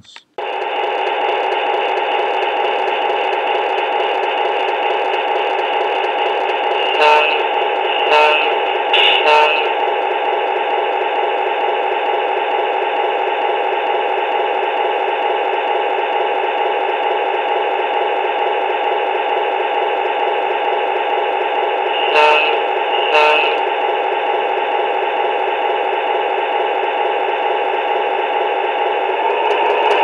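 Sound decoder of an HO-scale Fairbanks-Morse Train Master model playing a steady diesel engine sound through the locomotive's small, tinny speaker. Brief louder sounds break in three times about seven to nine seconds in, and twice more around twenty-two seconds in.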